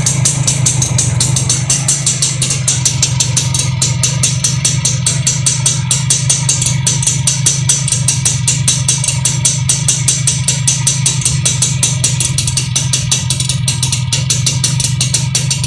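Suzuki Max100R's two-stroke single-cylinder engine idling steadily through its stock OE silencer, refitted in place of a catalytic silencer, with a rapid, even exhaust pulse.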